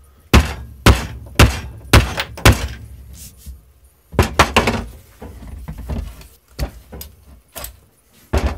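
Steel sledgehammer head on a new fiberglass handle being knocked down against the floor to seat it: five heavy thuds about half a second apart, then two more about four seconds in and lighter knocks after.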